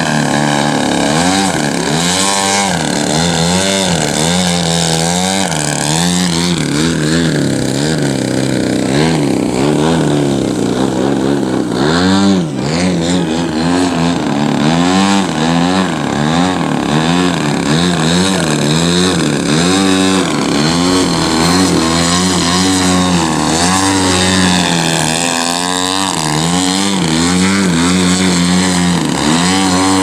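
Large-scale RC aerobatic airplane's engine and propeller running hard while the plane hovers and manoeuvres low, the throttle and tone swinging up and down continuously.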